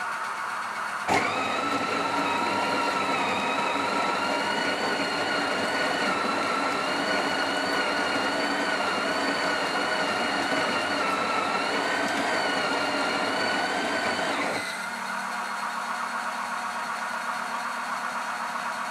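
Sage (Breville) Oracle Touch's built-in conical burr grinder grinding beans straight into the portafilter. It runs as a steady motor whine with a slightly wavering pitch, stepping up with a click about a second in and stopping about fourteen seconds in. A quieter, lower hum follows as the machine's automatic tamper compresses the grounds.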